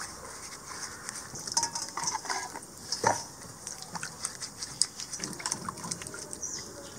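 Sweet potatoes being scrubbed by hand in a steel bowl of muddy water: irregular splashing and sloshing, with scattered knocks of the tubers against the stainless steel bowl and colander.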